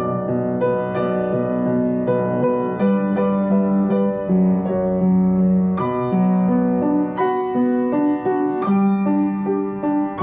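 Background music played on a keyboard: slow, sustained notes that change about every second over a held low note.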